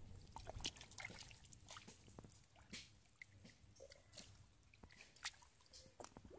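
Faint wet squelching and dripping of mud and shallow water as hands grope through the mud for fish: an irregular scatter of small splats and drips.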